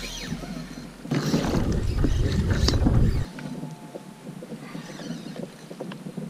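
Water and wind noise from a fishing kayak on open water, with heavy low buffeting from about a second in that cuts off sharply a little after three seconds, then a quieter, even wash.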